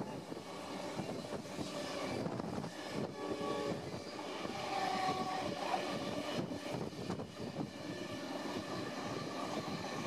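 Rolling noise of trains on parallel tracks, heard from aboard a moving carriage: a Pacific National hopper freight train with its NR-class diesel locomotive runs close alongside. There are two short pitched notes, about three and five seconds in.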